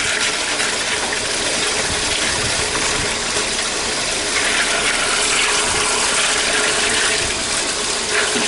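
Steady rush of running water at a fish-cleaning station, with a faint steady hum underneath.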